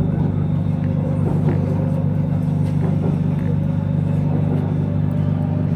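Steady low running hum of a BTS Skytrain car on the move, with a faint high whine over it.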